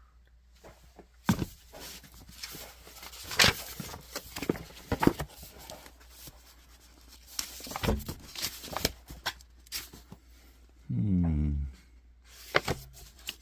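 Irregular clicks, knocks and rustling of things being handled. A short, low groan falls in pitch about eleven seconds in.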